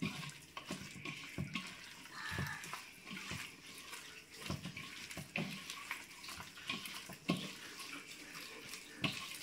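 A hand squishing chicken pieces through thick, wet chicken-65 masala batter in a stainless steel bowl: faint, irregular wet squelches as the meat is turned and pressed into the paste.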